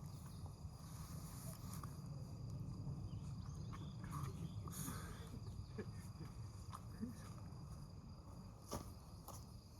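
Quiet outdoor ambience: a steady low rumble with a faint, high, steady hum, scattered soft clicks, a brief brighter hiss about five seconds in and a sharper click near the end.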